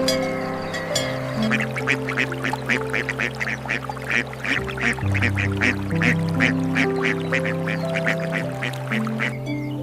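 Ducks quacking in a rapid, steady run of short calls, about four a second, over soft background music with long held notes.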